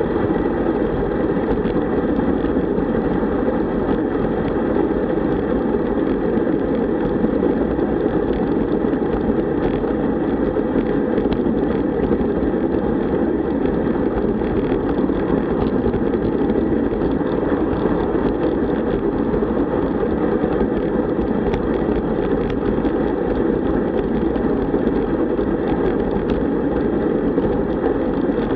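Steady rushing rumble of wind on the bike-mounted camera's microphone, mixed with tyre and road noise from a road bike riding at about 35 km/h.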